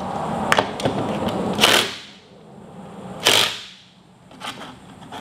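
Cordless drill driving a bolt through a climbing-wall volume: it runs steadily for about the first two seconds, then gives two short bursts, with a few sharp clicks.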